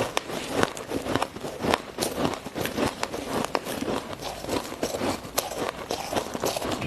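Ice being bitten and crunched between the teeth close to the microphone: a dense run of sharp, irregular cracks and crunches.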